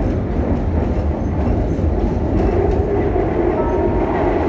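Lisbon Metro train running along the track, heard from inside the carriage as a steady, loud low rumble of wheels on rails. The rumble grows fuller about halfway through as another metro train passes close alongside.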